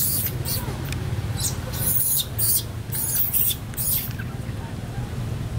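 A monkey giving short, high squeaks, several in quick succession, over a steady low hum.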